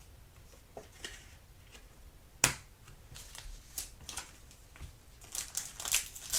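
Trading cards and their packaging being handled: scattered light clicks and one sharp snap about two and a half seconds in, then a run of crinkling near the end.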